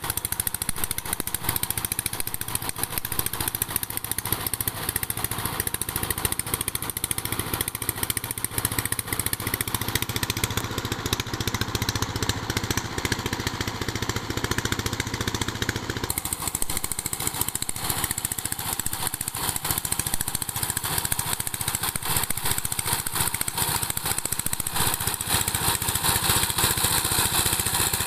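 Single-cylinder diesel engine of a two-wheel power tiller running steadily under load as its cage wheels churn a flooded paddy field, a rapid, even firing beat. The tone shifts slightly a few times.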